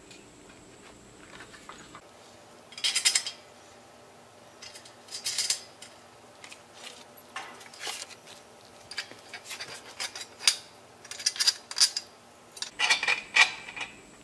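Loose steel bolts, nuts and washers clinking and rattling against each other and the smoker's thin steel cart frame as the hardware is picked up and fitted by hand, in short scattered clusters of clicks, the loudest near the end.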